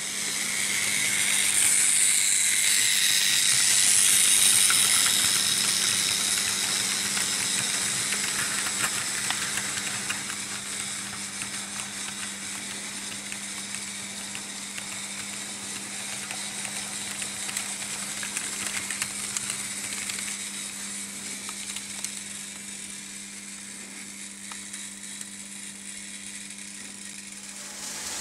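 Märklin H0 model trains running on metal M-track: a steady rushing rattle of wheels and sliding pickup shoes over the track with a constant low motor hum. It is loudest in the first few seconds as a train passes close, then fades gradually.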